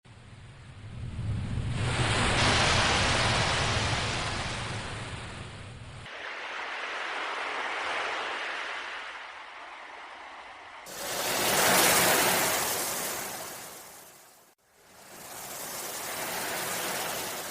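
Sea waves washing in and drawing back in successive swells, each rising and fading over a few seconds, with abrupt joins between them.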